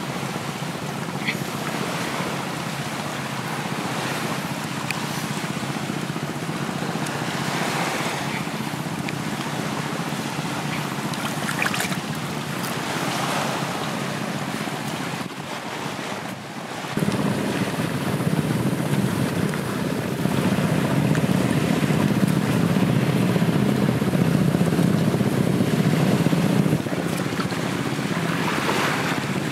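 Waves washing onto a sandy beach, with wind buffeting the microphone. The wash gets louder and deeper a little past halfway.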